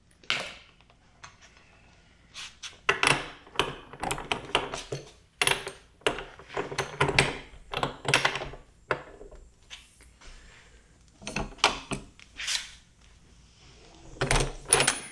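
Metal tools and bolts being handled: irregular clicks, clinks and knocks in quick clusters, with no power tool running.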